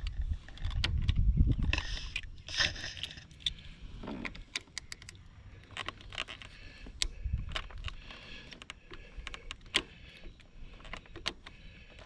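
Keys jangling and clicking on a keyring while a barrel key is worked back and forth in a Harley-Davidson ignition switch, with scattered light metallic clicks and scrapes. A low rumble comes in the first two seconds.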